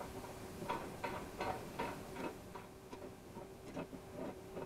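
A large nut being turned onto the steel steering-pivot bolt of a dump cart: a run of short metallic clicks, about three a second.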